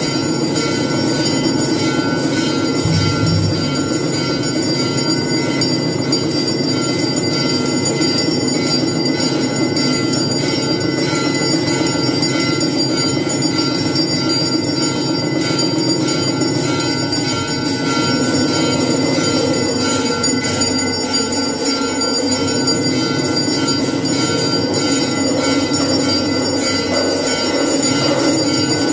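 Brass temple bells ringing continuously during aarti worship, a dense metallic clangor with several high ringing tones held throughout and no pause.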